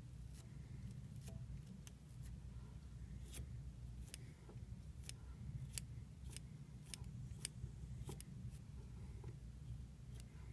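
Small pointed scissors snipping deer body hair to shape a fly: a string of short, sharp snips, sparse at first and then about two a second from about three seconds in. A low steady hum sits underneath.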